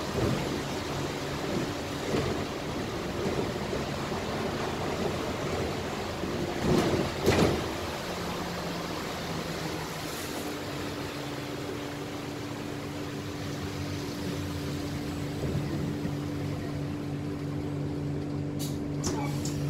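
Cabin noise of an Alexander Dennis Enviro400H hybrid double-decker bus on the move: steady running hum and road rumble, with a couple of thumps about seven seconds in. About ten seconds in a steady low hum sets in, and a few sharp clicks come near the end.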